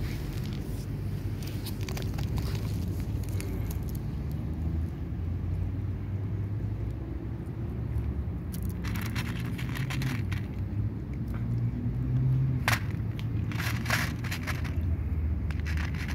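A cat crunching dry kibble from a plastic plate: clusters of crackly clicks about halfway through and again near the end, over a steady low rumble.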